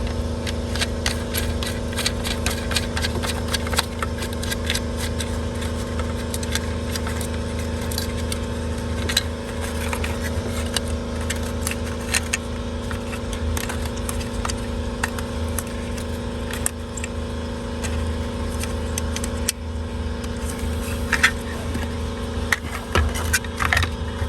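Small metal parts clicking and rattling as a retaining nut is fitted onto a USB charger socket, with many short clicks scattered through, over a steady low hum.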